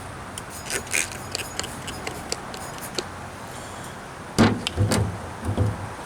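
Handling noise while the glass neck of a cathode-ray picture tube is wiped clean: scattered light clicks and rubbing, then a few heavier thumps and scuffs about four and a half seconds in.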